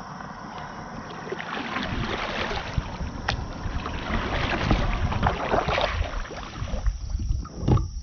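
Kayak paddle strokes: the blades dipping and splashing in the water beside the hull as the kayak is paddled, with a low thump near the end.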